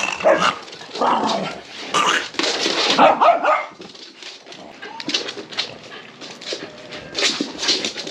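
Dogs barking in a sudden flare-up; the loudest barks come in the first three and a half seconds, followed by shorter, quieter sounds.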